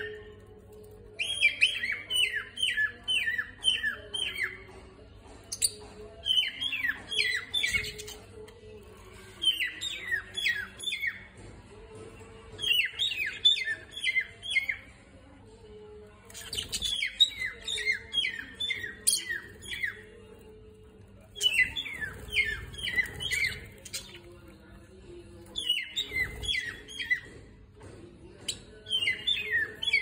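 Caged budgerigars and lovebirds calling: bouts of rapid, sharp, high chirps, each lasting a couple of seconds, repeating every few seconds.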